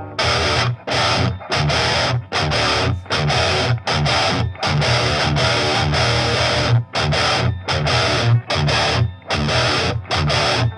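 Heavily distorted electric guitar played through a Line 6 Helix modeller with a 2x12 cabinet impulse response at its closest mic position, heard from the amp in the room. It plays a stop-start riff of chunky chords cut by short silences.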